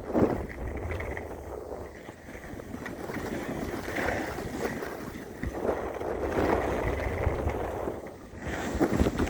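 Wind buffeting the microphone: a rough rushing rumble that swells and eases every few seconds.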